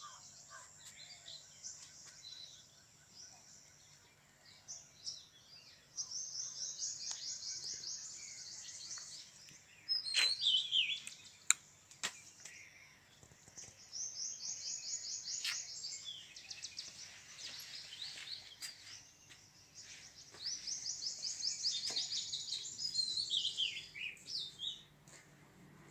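Wild birds singing: high, fast trilled phrases that come in three long bursts, with a few falling chirps and one sharp click about halfway through.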